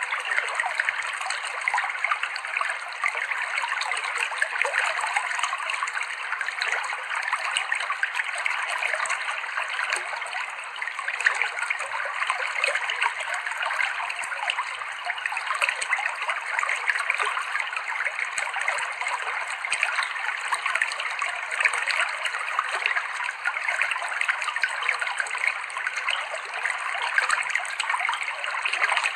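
River water flowing and trickling over rocks in a steady babble.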